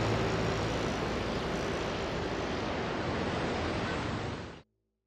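A steady rushing noise as the last notes of music fade out in the first half second; the rush cuts off abruptly near the end.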